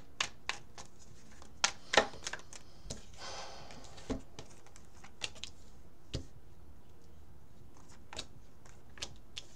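Tarot cards being handled and laid on a table: irregular sharp clicks and snaps, loudest about two seconds in, with a brief rustle a little after three seconds.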